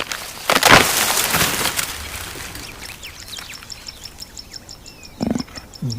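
A loud rustling scrape, then a small bird chirping in a rapid, even run of high notes.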